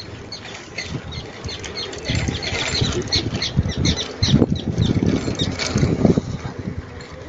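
Wind buffeting the microphone and tyre rumble from a bicycle riding along a paved path. The rumble grows louder from about two seconds in until shortly before the end. Short high chirps repeat about three times a second throughout.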